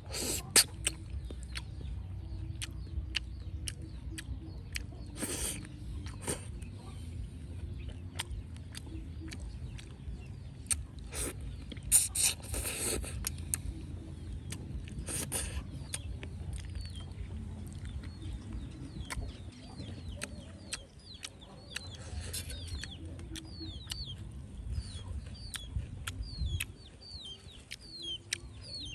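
Chickens clucking over a steady low rumble and scattered sharp clicks, with short high chirps repeating in the last third.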